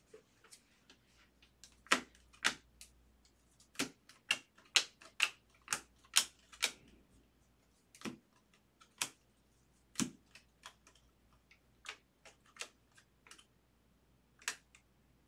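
Stiff baseball trading cards being flipped through one by one in a stack: irregular sharp clicks and snaps of card stock, roughly one or two a second.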